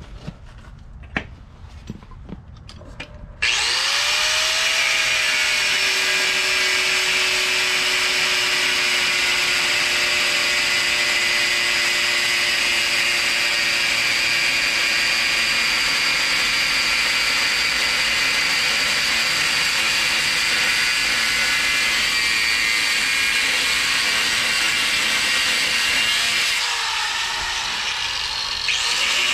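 Angle grinder with a cut-off wheel spinning up about three seconds in after a few light clicks, then cutting steadily through the steel axle tube of a Ford 8.8 rear axle. Near the end the sound drops for about two seconds as the disc comes off the tube, then picks up again.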